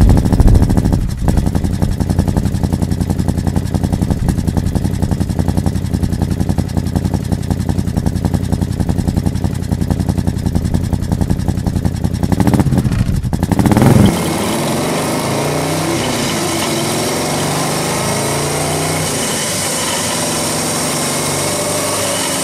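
Morgan 3 Wheeler's air-cooled V-twin idling with an uneven, lumpy beat, revved briefly about 12 seconds in. After that the car is on the move, the engine running under load with its pitch rising and falling, and wind rushing across the microphone.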